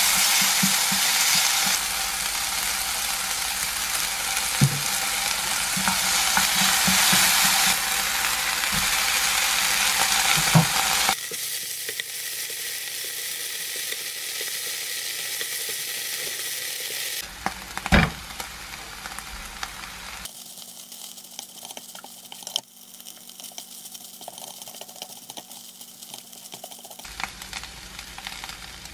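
Chopped kimchi sizzling in a nonstick frying pan as a wooden spatula stirs it, loudest for the first third. After several abrupt cuts the sizzle is quieter, with a few sharp taps of the spatula on the pan, as tuna and then rice are stir-fried in.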